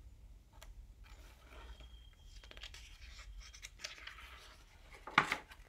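Faint rustling and handling of a picture book's paper pages, with a louder rustle near the end as a page is turned.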